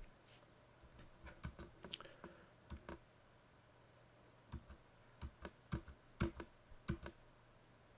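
Faint, scattered taps of computer keyboard keys, single presses: several in the first few seconds, a pause around the middle, then several more.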